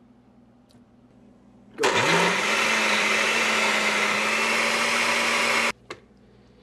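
Countertop blender starting about two seconds in, its motor spinning up quickly to a steady whir as it churns a liquid mix of soup, mayonnaise and pineapple, then switched off abruptly after about four seconds, with a click or two just after.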